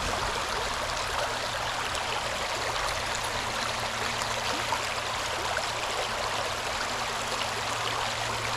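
River water flowing steadily, an even rushing babble, with a faint low hum underneath.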